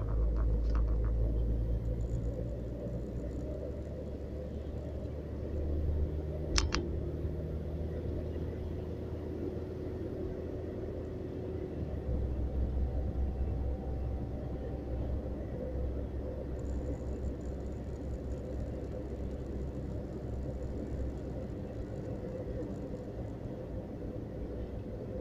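Steady low rumble of a car driving, heard from inside the cabin: engine and tyre noise on the road. A short sharp click about six and a half seconds in.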